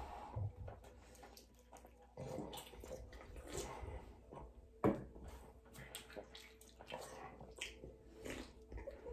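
Quiet eating and drinking sounds: chewing, sips from soda cans, and small clicks and rustles, with one sharper knock about five seconds in.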